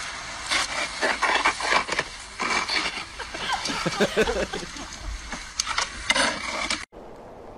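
Plastic snow shovel dragged through snow by a dog holding its handle, the blade scraping and crunching over the packed snow in an uneven run of crackles. It cuts off suddenly near the end.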